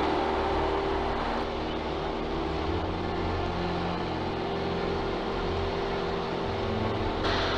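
A single-engine high-wing light aircraft's engine and propeller running steadily, heard from inside the cabin. The engine note and cabin noise change abruptly about a second and a half in, and again near the end, where the footage is cut.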